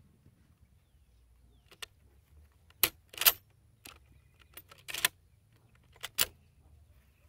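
About eight sharp metallic clicks and clacks from a Finnish M-28/30 Mosin-Nagant bolt-action rifle being handled and its action worked between shots. Several come in quick pairs, and the loudest falls a little past three seconds in.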